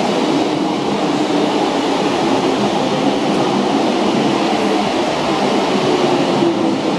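Metro-Cammell-built MTR electric train moving alongside the platform, a steady rumble of its running gear.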